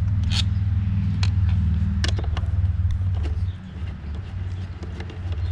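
A motor vehicle's engine running with a steady low rumble that drops off about three and a half seconds in, with scattered light clicks of a screwdriver working on bolts.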